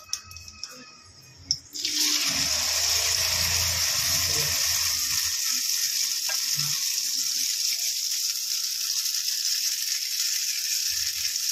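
Rava bun dosa batter sizzling as it hits hot oil in a nonstick kadai. The sizzle starts suddenly about two seconds in, as the batter goes in, then holds as a steady hiss.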